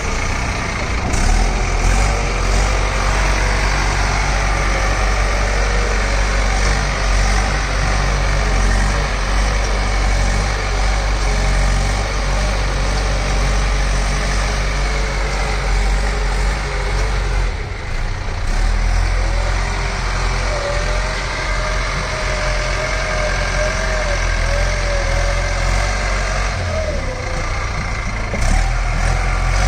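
Diesel engine of a Bull Challenger CH 76 backhoe loader running steadily under load while the front bucket dozes sand, its pitch wavering slightly up and down. The level dips briefly a little past halfway.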